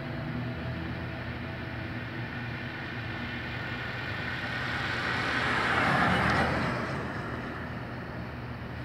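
A car passing by on the street, its tyre and engine noise swelling to a peak about six seconds in and then fading, over a steady low hum.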